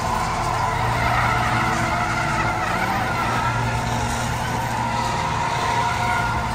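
Stunt cars and a show truck drifting, tyres squealing over steadily running engines.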